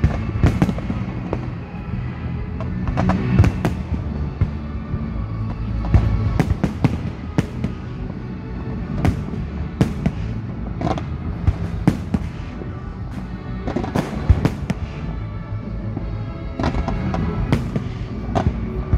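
Fireworks display: rockets and shells bursting in a steady barrage of sharp bangs and crackles at irregular intervals, several louder bangs standing out. Music plays underneath.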